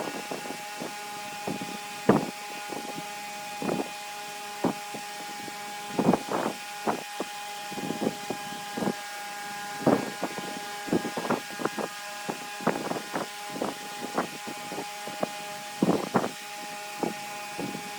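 Large wood lathe running with a steady motor hum, while a turning tool cuts the spinning wood in short, irregular strokes.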